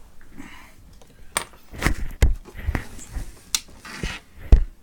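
Handling noise on the bench: a run of about seven irregular clicks and knocks, the loudest near the end, with short patches of hiss between them.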